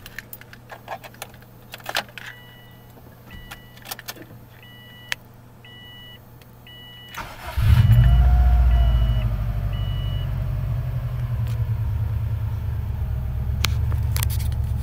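A dashboard chime beeps repeatedly, then the 2002 Subaru WRX's turbocharged 2.0-litre flat-four cranks briefly and catches about seven seconds in. It flares up and settles into a steady fast idle on a cold start, heard from inside the cabin.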